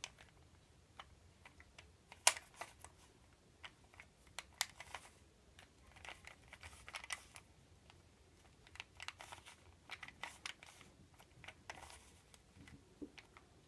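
Plastic Rubik's Cube being turned by hand: quick, irregular clicks and clacks as its layers are twisted through a move sequence, in clusters with short pauses.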